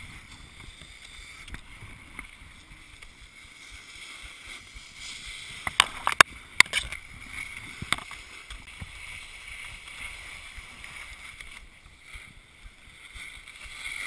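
Skis sliding and scraping over packed snow, a steady hiss, with a quick run of sharp knocks about six seconds in and another near eight seconds.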